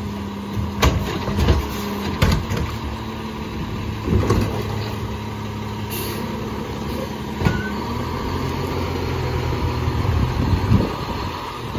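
Rear-loader garbage truck's engine idling steadily, with several clunks and knocks as plastic garbage carts are handled and banged at the rear hopper.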